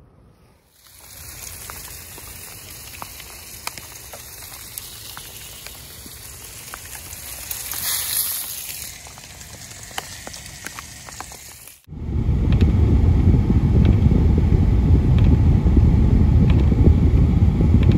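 Bacon and hot dogs sizzling in a frying pan on a propane camp stove, a steady hiss with small crackles that gets louder for a moment about eight seconds in. About twelve seconds in it cuts abruptly to the louder, steady low rumble of a car driving on a wet road in the rain, heard from inside the cabin.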